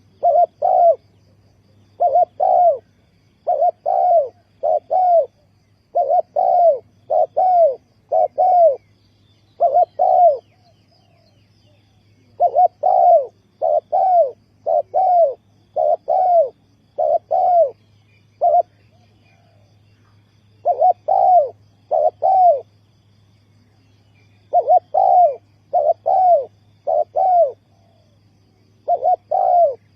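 Spotted dove cooing: low, hollow coos in short runs of two to four notes, repeated over and over with pauses of a second or two between runs, over a faint steady hum.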